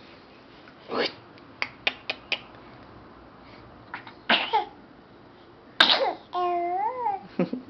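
A baby's short sneezes, a few sharp bursts spread over several seconds with small clicks between them, followed near the end by a drawn-out coo whose pitch rises and falls.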